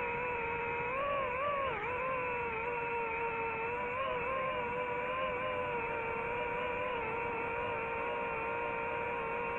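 DJI FPV drone's motors and propellers whining. The pitch wavers and dips briefly about two seconds in as the throttle changes, then holds steady.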